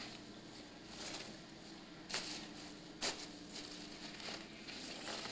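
Foam packing peanuts rustling and squeaking as a kitten shifts and digs among them in a plastic tub, with two sharp clicks about two and three seconds in.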